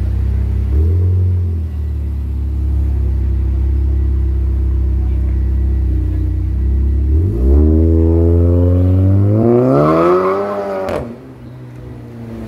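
Car engine idling with a short rev blip about a second in, then revving up over about four seconds and cutting off sharply with a crack, falling back to a quieter idle.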